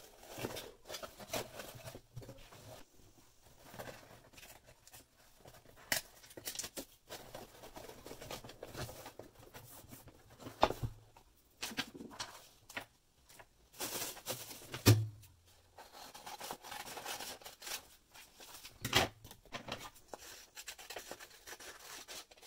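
A cardboard mailing box being handled and closed by hand: flaps folded and tucked in, with rustling of paper and several sharp knocks and taps against the table.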